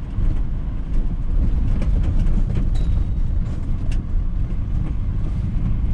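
Engine and road noise heard from inside a moving vehicle: a steady low rumble.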